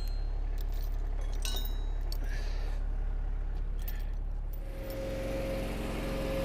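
The firewood splitter's gas engine runs steadily, with a few light clinks in the first few seconds. About two-thirds of the way through, the engine note changes and a steady whine joins it, as the splitter's hydraulics come under load.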